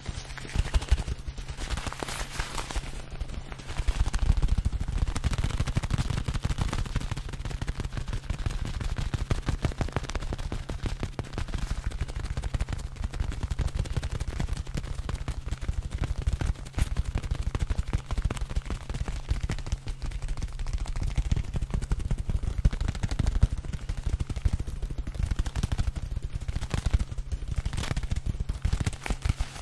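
Two small stitched fabric balls squeezed and rubbed together right up against a microphone: dense, rapid crackling and crunching that gets louder and thicker about four seconds in.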